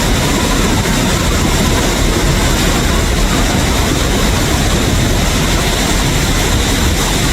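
Debris flow of mud and water pouring over a retaining wall: a loud, steady rushing noise, heaviest in the low end.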